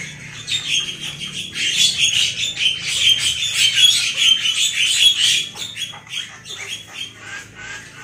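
Caged songbirds chirping in a fast, dense run of high calls for about five seconds, then thinning to scattered chirps.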